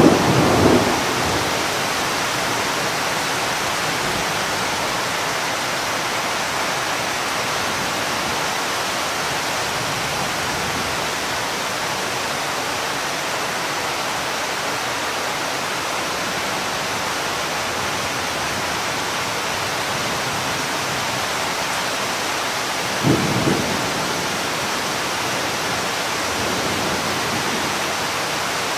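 Steady rain, broken by two short claps of thunder: one at the very start and another about twenty seconds later.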